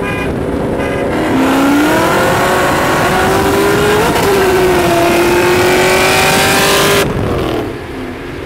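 Mustang V8s at full throttle side by side: a Terminator Cobra's supercharged 4.6 and a 5.0 Coyote race from a roll. The engine note climbs in pitch, dips at a gear change about four seconds in, climbs again, then cuts off sharply as they lift about seven seconds in.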